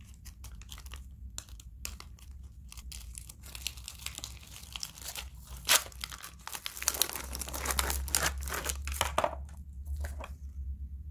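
A paper-and-plastic sterile packet being peeled and torn open by hand, with the plastic crinkling and crackling. The crackling grows busier and louder through the middle and latter part, with one sharp snap about halfway.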